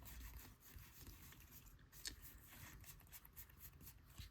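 Faint rustling and flicking of baseball trading cards being handled and slid past one another, in short irregular ticks.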